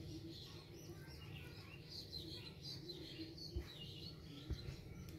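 Small birds chirping repeatedly over a low steady hum, with two brief low thumps about a second apart in the second half.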